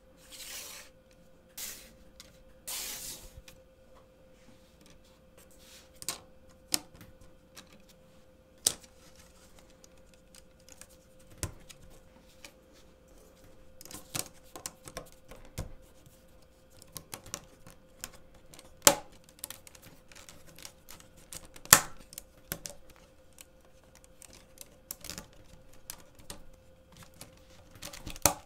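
LEGO plates clicking and clacking against each other as a hinged plate sculpture is folded and shifted by hand: irregular sharp clicks with two short rustles near the start and a couple of louder clacks past the middle.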